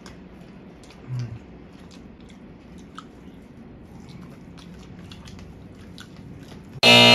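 Quiet mukbang eating with bare hands: faint chewing and soft clicks of fingers and mouths in the rice, with a short low hum about a second in. Near the end a loud buzzing tone with many overtones starts suddenly and holds.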